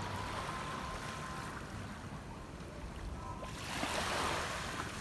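Small waves washing at the shoreline, then, about three and a half seconds in, a rushing splash lasting about a second as a thrown cast net lands on the shallow water.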